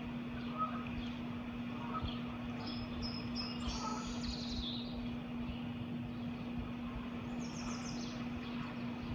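Small songbirds chirping in short, high clusters, one a few seconds in and a quick run of chirps near the end, over a steady low hum and background rumble.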